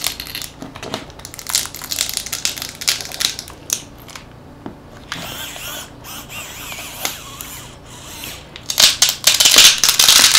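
Hand tools prying and scraping at a smartphone's glued-in battery: irregular clicks and scrapes of metal on plastic, a steadier scrape in the middle, and the loudest, densest scraping and crackling near the end as the battery is forced loose.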